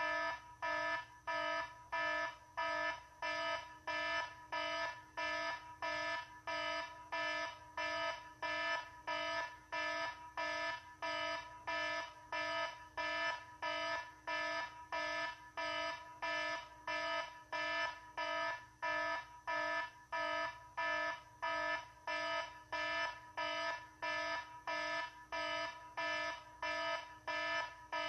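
Electronic alarm beeping in an even, unbroken run of short beeps, about two a second.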